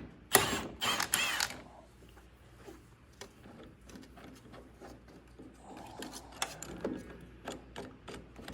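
A wrench working steel puller bolts loose on a tractor's steering shaft. A few loud metal clinks and scrapes come in the first second and a half, then a run of lighter clicks.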